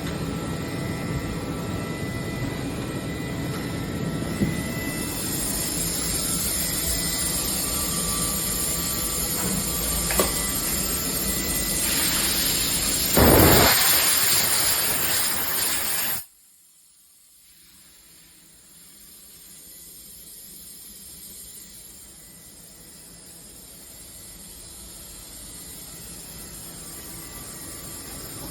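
DMG MORI CMX 70U milling machine running with a steady hum and hiss, a couple of small clicks, and a loud rush of air or spray about 13 seconds in. The sound cuts off abruptly at about 16 seconds, leaving a much quieter hiss that slowly grows louder.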